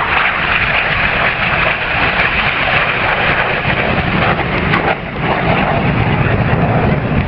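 Steady rushing roar of jet engines from Red Arrows BAE Hawk T1 jets overhead, dipping briefly about five seconds in.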